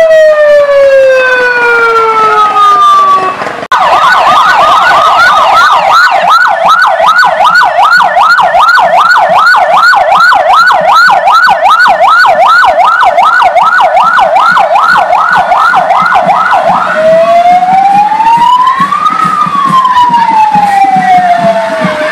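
Fire truck's electronic siren: a falling wail that cuts off abruptly, then a fast yelp of about three sweeps a second, changing near the end to a slow wail that rises and falls.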